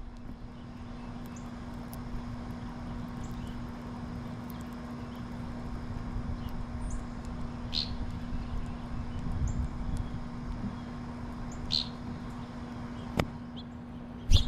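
Small bird giving a few short, high chirps, two of them clearer than the rest, over a steady low hum and rumble; a sharp tap near the end.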